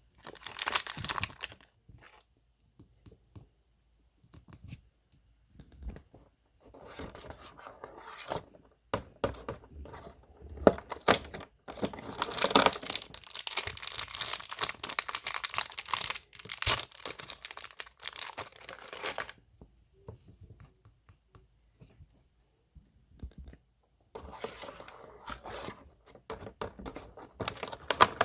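Disney Doorables toy packaging being torn open and handled: crinkling and tearing in irregular bursts, with pauses of a few seconds between them.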